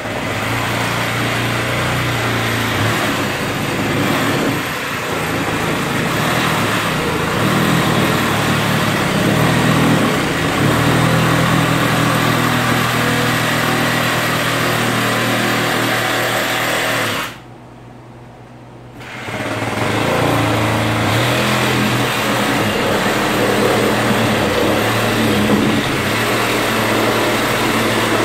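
Reciprocating saw (sawzall) cutting through metal wall siding, running steadily. It stops for a couple of seconds about two-thirds of the way through, then starts cutting again.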